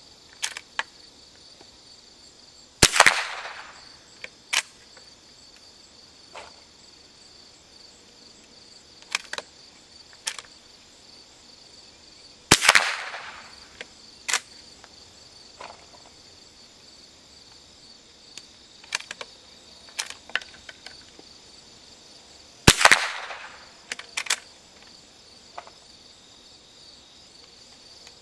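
Three .22 rimfire shots from a single-shot bolt-action Cooey Model 39 rifle with a 26-inch barrel, about ten seconds apart, each with a short echo. Between the shots come lighter clicks of the bolt being worked and a fresh round loaded. A steady high chirring of insects runs underneath.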